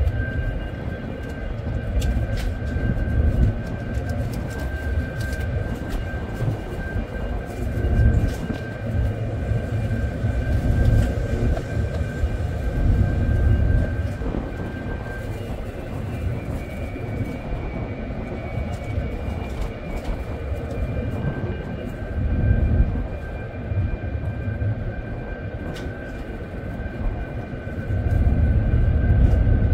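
Steady mechanical drone of a ship's engines and machinery, with a constant high whine over a low rumble that swells and eases every few seconds. A few faint light clicks.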